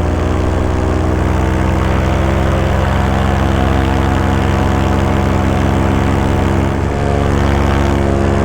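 Paramotor engine and propeller running steadily at cruise power in flight, with a brief dip in level about seven seconds in.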